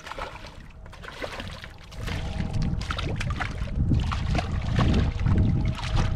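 A hooked striped bass thrashing at the surface in shallow water, with repeated splashing and sloshing as it is landed by hand at the rocky shore. The splashing gets louder about two seconds in.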